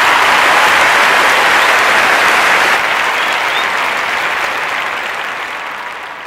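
Crowd applauding: a loud, dense clapping that slowly dies down.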